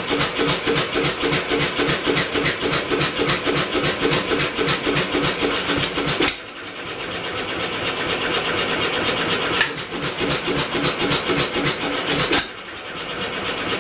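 A homemade four-stroke engine converted from a two-cylinder air compressor, turned over with electric-motor assist while being tried for a run, beats with a fast, even mechanical rhythm. The rhythm falls away suddenly about six seconds in and again near the end, each time building back up over a few seconds.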